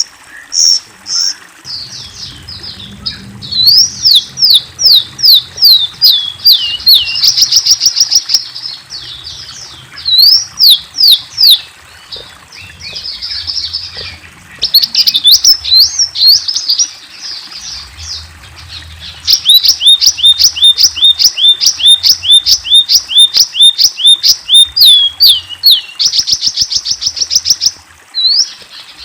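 Songbird kept in Indonesia as 'rio-rio', singing in full song: long runs of fast, high whistled notes, each sweeping in pitch, about three or four a second, broken by short pauses.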